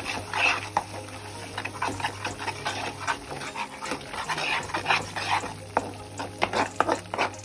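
Perforated steel spoon stirring and scraping a thick masala paste frying in oil in a pan, with sizzling, repeated scraping strokes and a quick run of clicks of the spoon against the pan near the end. The paste is being fried (bhuna) to the stage where it starts to release its oil.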